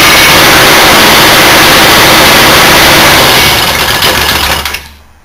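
Old single-cylinder Briggs & Stratton engine running loudly on fuel poured into it, then dying away about four and a half seconds in.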